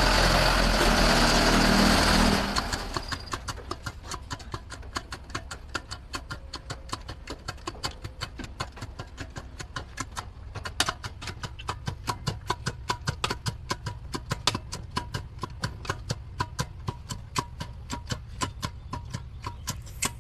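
An engine runs loudly for about two seconds and then drops away, leaving a low steady hum under a long run of quick, fairly regular clicks, about three or four a second.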